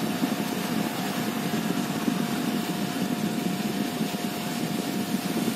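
Steady mechanical hum with a thin constant high tone, unchanging throughout.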